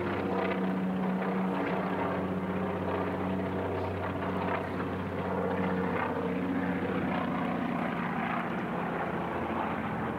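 Twin-engine piston propeller plane flying past with a steady engine drone; its pitch shifts a little about halfway through.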